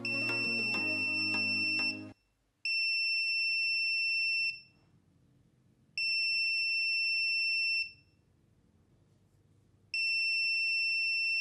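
Small buzzer on a touch-sensor circuit sounding a steady high-pitched beep four times, each about two seconds long, as the metal touch plate is touched.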